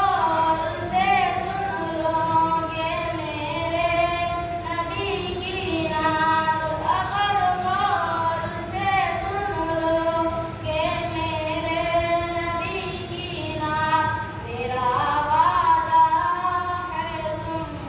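A boy singing a naat unaccompanied into a microphone, drawing out long notes that waver and slide in pitch.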